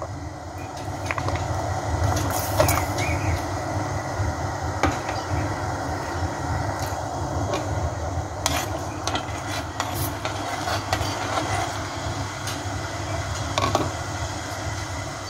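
Sugar syrup with peeled tomatoes and almonds boiling in a stainless steel pot, a steady bubbling rumble. A few light clicks and knocks stand out from it.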